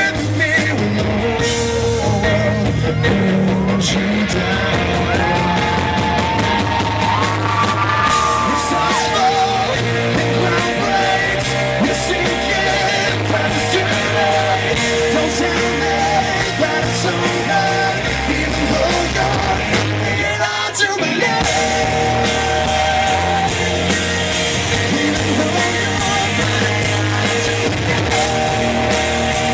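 Live rock band playing in concert, with singing and yelling over the music.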